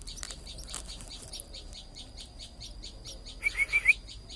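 Tailorbird chicks chirping in a fast, even series of thin high notes. About three and a half seconds in comes a quick run of four louder, lower call notes.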